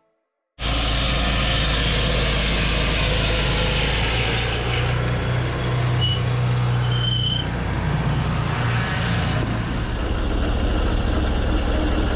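Engine of a Mahoe Minimax portable sawmill running steadily, coming in about half a second in after a moment of silence.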